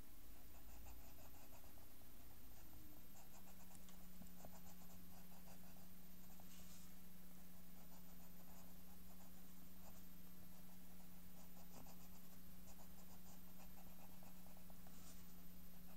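Pencil scratching on paper in quick, short sketching strokes, faint. A steady low hum runs underneath and drops in pitch a couple of seconds in.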